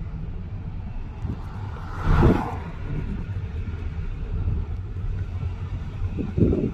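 A car driving slowly, heard from inside the cabin with a window open: a steady low rumble of engine and tyres. A short, loud rush of noise comes about two seconds in.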